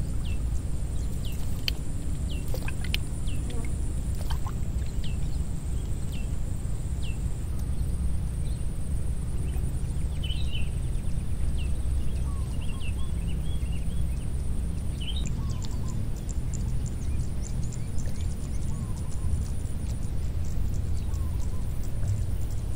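Outdoor ambience: a steady low rumble with scattered short bird chirps, most of them in the first few seconds and again from about ten to fifteen seconds in.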